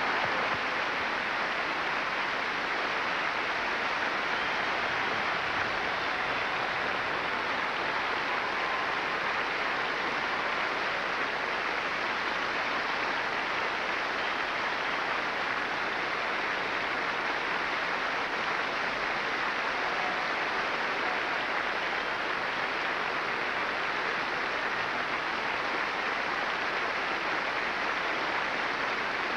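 Large audience applauding in a long standing ovation, dense and steady, without a break.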